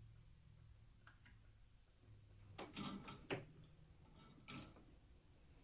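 A few light knocks and clicks of soldering tools being handled on a workbench, with the soldering iron going back into its stand. They come in a short cluster about two and a half to three and a half seconds in, the sharpest near the end of it, and there is one more knock about a second later.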